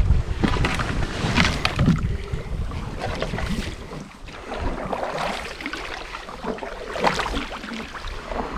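A canoe being paddled up a shallow creek: irregular splashing and swishing of paddle strokes in the water, with wind rumbling on the microphone for the first couple of seconds.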